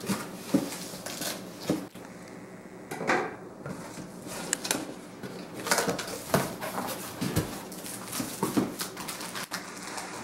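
A cardboard box being opened by hand: flaps pulled open and cardboard scraping and rustling in a run of short, irregular scrapes and knocks.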